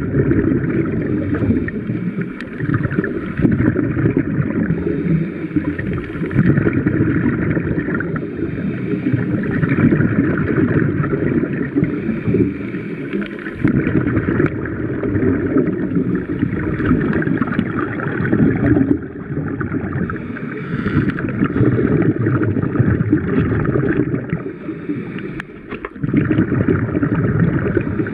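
Muffled underwater noise picked up by a submerged camera: a steady rushing, bubbling water sound, uneven in strength with a few brief lulls.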